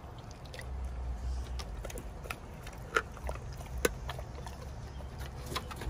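Pit bull chewing raw chicken: an irregular run of sharp crunches and wet bites, the loudest about three and four seconds in.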